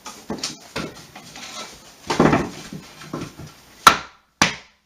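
Mallet blows on a wooden 2x4 block, knocking a drywall sheet into place against the studs: a series of irregular knocks, the sharpest near the end.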